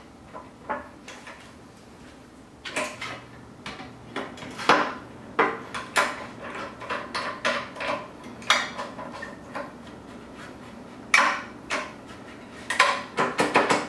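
Metal seat post of a Schwinn IC4 exercise bike sliding in its frame tube while the spring-loaded pop-pin adjustment knob is worked, giving irregular metallic clicks and knocks as the pin meets the post's adjustment holes. The loudest knocks come in a cluster near the end.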